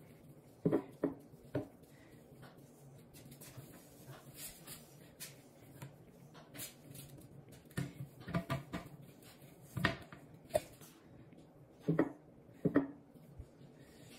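A cloth wiping a porcelain toilet tank lid and seat: soft rubbing with scattered short knocks and squeaks, in small clusters about a second in, around the middle and near the end.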